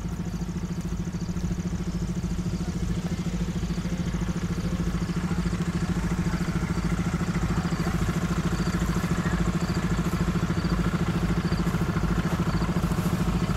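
An engine running steadily, with a rapid, even beat and a strong low hum.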